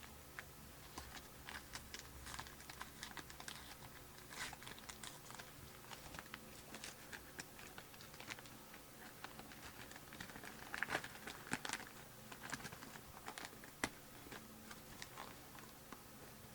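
Faint, irregular small clicks and light rustling of hands at work, a little busier just after ten seconds in.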